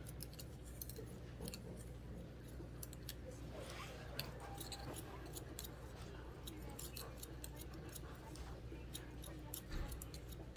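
Barber's scissors snipping hair in quick, irregular cuts, over a faint steady low hum.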